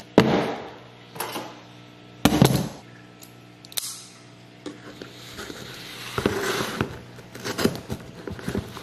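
A cardboard shipping box handled on a stone countertop: several sharp knocks and thumps and a click. Then scraping and rustling as a folding pocket knife is worked at the box's packing tape, with a faint steady hum underneath.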